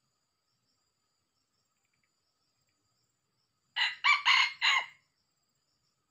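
Red junglefowl rooster crowing once: a short crow of four quick parts, starting about four seconds in and lasting just over a second.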